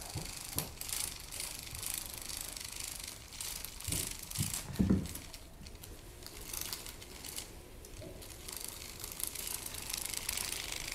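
Battery-powered moving butterfly cat toy running: a small motor whirring, with the butterfly's wings fluttering and rattling. A few dull thumps come about four to five seconds in.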